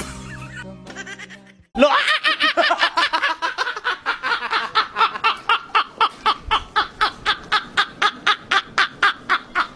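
Music fading out, then, about two seconds in, a run of hearty laughter in rapid, evenly repeated 'ha' bursts, about four to five a second.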